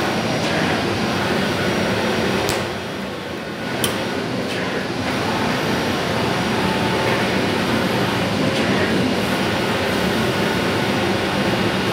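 Flatbed CNC knife cutter with a MultiCut head running: a steady machine whir and hiss that dips briefly about two and a half seconds in, with one sharp click about a second later.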